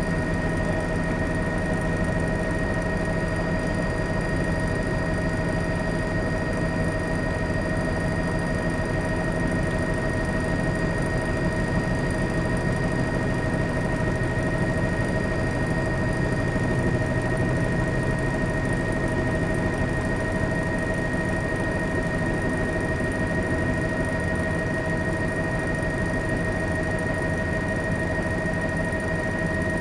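A steady engine drone: a low rumble with several constant whining tones above it, unchanging throughout.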